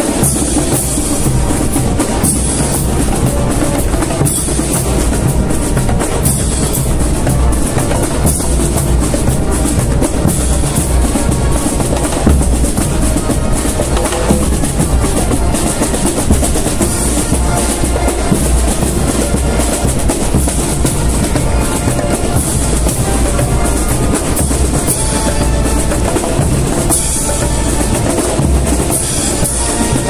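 Brass-and-percussion marching band playing a march, with snare drums, tenor drums and bass drums beating under the brass. The band plays on steadily without a break.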